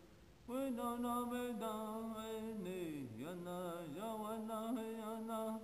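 Background music of a male voice chanting: after a brief dip near the start, it holds long notes with slight wavering and slides down in pitch twice.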